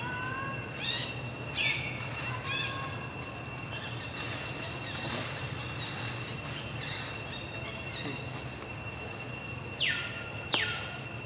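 Outdoor ambience: a steady high insect drone, with a few sharp, steeply falling whistle-like animal calls, the two loudest near the end.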